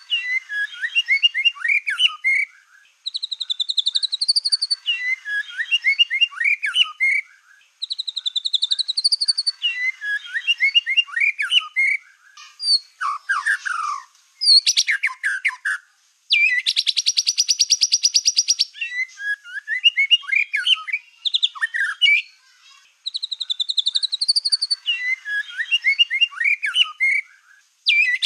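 White-rumped shama of the black-tailed form singing in full song: a phrase repeated every three to four seconds, each opening with a rising whistle and running into a jumble of quick notes. About two-thirds of the way through, the song breaks into a long, rapid, evenly pulsed trill lasting about two seconds.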